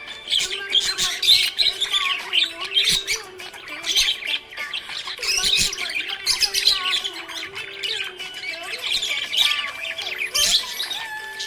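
Budgerigar chattering and chirping without a break: a dense run of quick, squawky chirps and warbles, with a faint steady low hum underneath.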